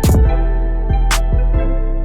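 Background music with a steady beat: kick drum, sharp cymbal or snare hits and sustained keyboard chords.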